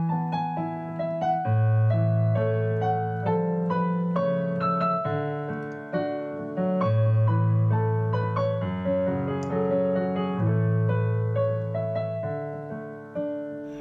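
Background piano music: a melody of single notes over long-held low bass notes.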